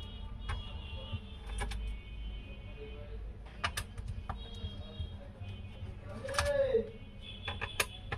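Irregular light clicks and taps of hands handling the plastic bottom case of an HP 15 laptop, a dozen or so scattered strokes, with a louder cluster near the end.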